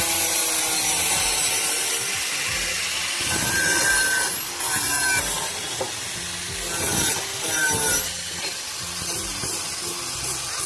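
Power tool working on steel railing stock, a harsh, continuous rasping noise with a few short high squeals.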